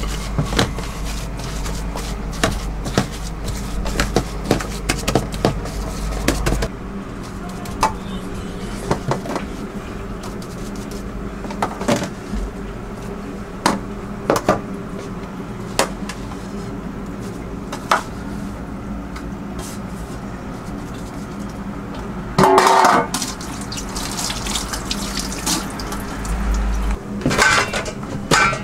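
Kitchen clatter of stainless steel gastronorm trays and pans: hands working falafel mix in a steel tray, then trays being lifted, knocked and set down, with many small knocks and one louder clatter of metal about 22 seconds in, over a steady low hum.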